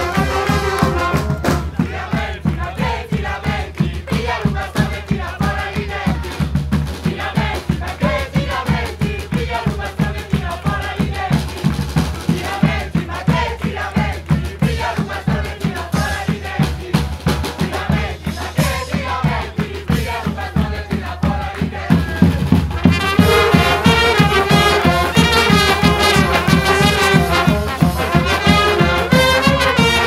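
Street brass band of saxophones, trumpets, trombone and sousaphone playing over a steady drum beat, with band members singing. About 23 seconds in, the full brass section comes in and the band gets louder.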